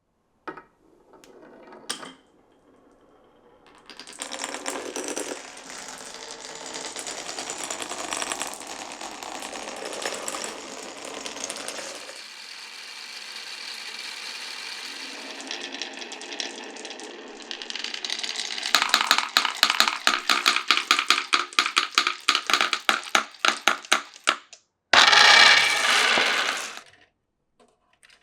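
Glass marbles running down a wooden marble run. A few sharp clicks as they start, then a long steady rolling rumble along wooden track, then a fast, even run of clicks, about five a second, as they bounce over a wavy section. Near the end comes a short dense rattle as they pile into the finish.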